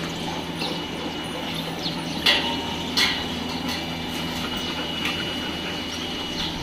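Dogs drinking from a steel water bowl: scattered small lapping ticks and two sharper knocks, at a little over two and at three seconds, over a steady low hum.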